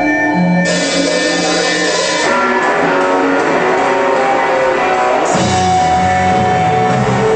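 Live psychedelic rock band playing, with guitars and drums; a wash of noisy high sound comes in about a second in and gives way to fuller bass about five seconds in.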